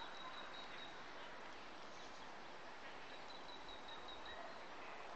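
Faint outdoor ambience with an even hiss, and a thin, steady high note heard twice, each about a second and a half long: once at the start and again about three seconds in.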